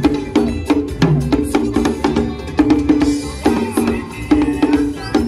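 Hand drumming on tall wooden drums: a fast, steady rhythm of sharp, pitched strikes.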